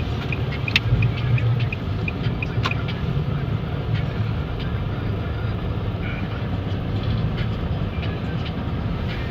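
Blizzard wind buffeting the microphone: a steady, gusting low rumble, with a few sharp clicks in the first three seconds.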